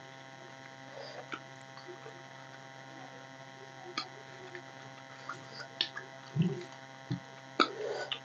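People eating rice and curry with their hands from steel plates: scattered short wet clicks and smacks of chewing and fingers on the plates over a steady electrical hum, with two dull low thumps a little after six seconds in.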